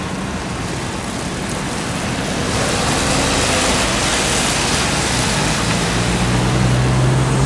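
Ford F-150 pickup driving past on a wet road: tyre hiss on the wet pavement, swelling from about two and a half seconds in as the truck comes close. A low, steady engine hum comes in near the end.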